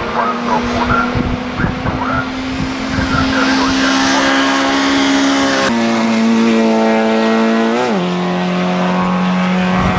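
Peugeot 205 1300 race car's four-cylinder engine under hard acceleration, its pitch held high and creeping up. Near the end the pitch drops sharply once as it changes gear and keeps pulling.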